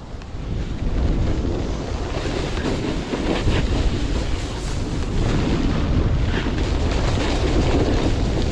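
Wind rushing and buffeting the camera microphone while snowboarding downhill, with the board sliding and scraping over the snow. It swells about half a second in and stays loud.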